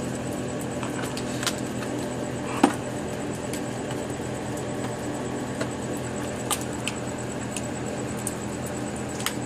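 Steady hiss of falling rain, with a few sharp clicks and taps scattered through it, the loudest about two and a half seconds in.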